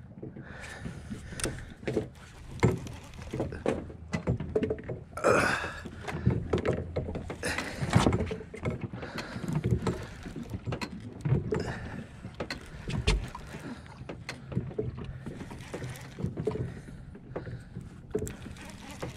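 A conventional fishing reel being cranked to reel in a hooked fish. The reel and rod handling make many irregular clicks and knocks, a few of them louder.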